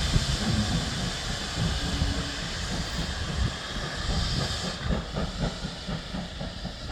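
Steam locomotive letting off a steady hiss of steam that drops away suddenly near the end, over a low, uneven rumble.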